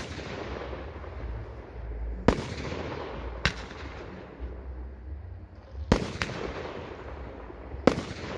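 Aerial fireworks fired from mortars: five sharp bangs, two of them close together, each trailing off in a rolling echo.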